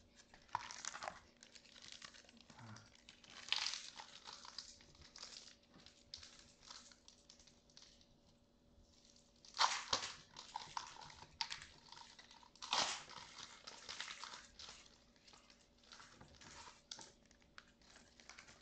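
Plastic Pokémon card booster-pack wrappers crinkling and tearing open in short irregular bursts, the loudest about ten and thirteen seconds in.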